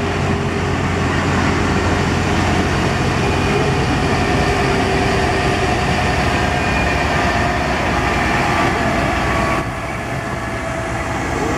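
Diesel engines of large modern tractors driving slowly past close by, a red Massey Ferguson towing a round baler with a Fendt following: a steady engine drone with a faint held whine over it. It drops a little in level near the end as the tractor goes by.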